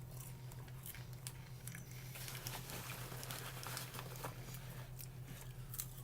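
Paper microwave popcorn bag being handled, crinkling and rustling, with scattered small crackles throughout.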